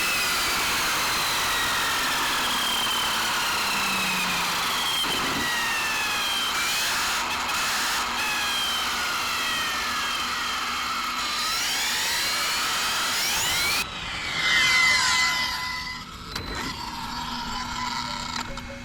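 Electric RC car at full throttle: a high whine from the motor and its new 25-tooth pinion gearing over steady wind and tyre noise, the whine sliding up and down in pitch. About fourteen seconds in the sound changes abruptly to a louder, shifting whine, and faint steady tones come in near the end.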